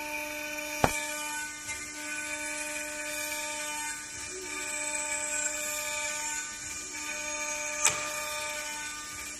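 CNC wood router spindle running at high speed with a steady whine while its bit carves a relief into a wood block, the high cutting noise wavering as the tool moves. Two sharp clicks stand out, about a second in and near the end.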